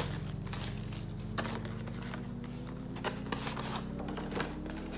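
Hands handling a card-game prerelease kit box and its packaging: light scattered clicks, scrapes and rustles of cardboard and plastic over a steady low hum.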